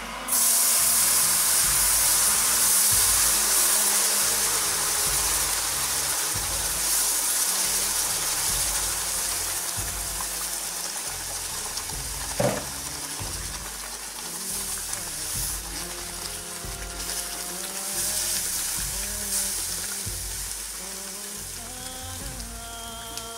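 Water poured onto hot oil and toasted spelt semolina in a pan: a loud frying sizzle starts suddenly and slowly dies down as the mixture is stirred with a wooden spatula. A single sharp knock about halfway through.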